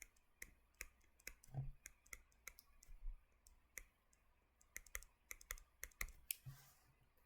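Faint, irregular clicks and taps of a stylus on a tablet as a structure is drawn, a couple of dozen short ticks scattered unevenly with gaps between them.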